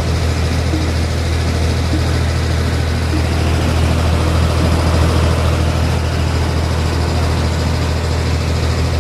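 Vehicle engine running steadily, a constant low drone with no change in speed.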